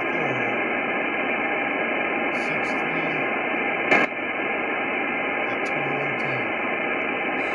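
Hiss of an Icom IC-9700 receiving single sideband on the RS-44 satellite downlink, with faint low tones coming and going in the noise and a sharp click about four seconds in.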